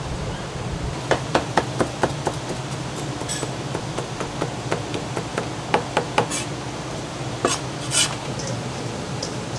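Chinese cleaver chopping cooked chicken breast on a plastic cutting board: a quick run of knocks about a second in, then scattered strokes and two louder ones near the end, over a steady low hum.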